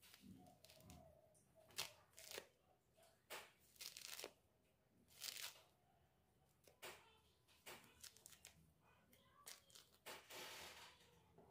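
Faint food-preparation handling noises: irregular short scrapes and clicks, with a longer rustling scrape near the end.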